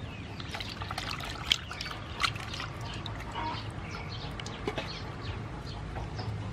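Raw octopus being squeezed and turned by hand in a basin of water: wet squelching and water trickling, with many short sharp clicks.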